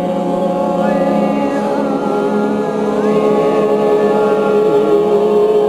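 A group of people singing together in long held notes, several voices at different pitches at once.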